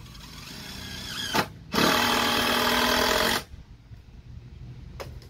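An electric power tool's motor running in two bursts: a short blip about a second and a half in, then a steady run of about a second and a half that cuts off suddenly.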